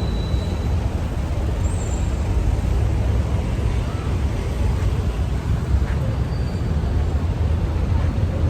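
Steady rumble of road traffic, heavy in the low end, with no distinct events.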